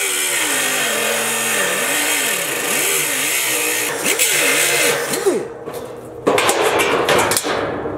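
Hand-held angle grinder grinding rusted sheet-steel flange, its motor pitch dipping and rising as the disc is pressed into the metal. It stops about five and a half seconds in, grinds again in a second short burst just after six seconds, then winds down.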